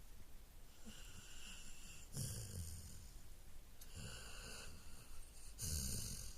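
Golden retriever snoring: four slow breaths, each a low rattling snore with a hiss, about one every one to two seconds.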